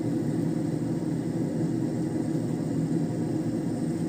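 A steady low rumble of background noise, even in level, with no distinct events.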